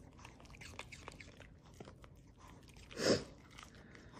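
Small dog chewing pieces of raw pear taken from a hand, with many small wet crunches and clicks of the jaw. A brief, louder rush of noise comes about three seconds in.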